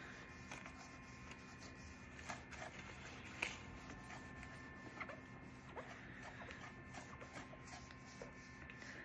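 Faint scratchy rubbing of a chlorhexidine swab applicator scrubbed back and forth over a box, with a few small clicks scattered through it.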